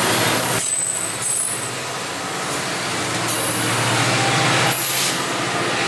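MARC bilevel commuter train standing at the platform: a steady low running hum under a dense wash of noise, with a few short hisses of air.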